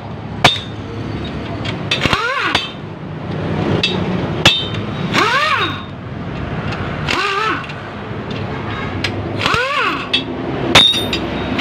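Pneumatic impact wrench running main bearing cap bolts down on a Mitsubishi 4D56 diesel engine block in four short trigger bursts, each a whine that rises and falls in pitch. Sharp metal clinks of bolts and caps come in between.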